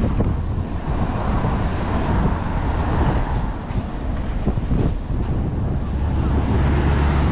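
City road traffic with a steady low rumble of wind on the microphone. From about six and a half seconds in, a large vehicle's engine hums steadily close by.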